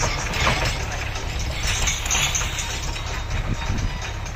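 Swaraj tractor running with a rotary mulcher working the maize residue: a steady low engine rumble with a noisy hiss over it.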